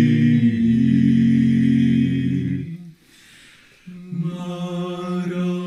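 Male a cappella quartet of two tenors, a baritone and a bass holding a sustained chord at the end of a hymn line. The chord cuts off under three seconds in, and after a short pause the voices come back in on a new held chord.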